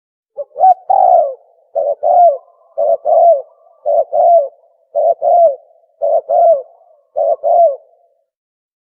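Tukmo dove call played as a hunting lure: a string of about seven coo phrases, roughly one a second, each a short note followed by a longer coo that falls in pitch.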